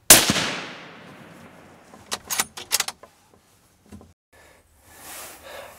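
A suppressed hunting rifle fires once, a sharp crack whose echo fades over about a second. About two seconds in comes a quick run of sharp metallic clicks, the rifle's action being worked to reload.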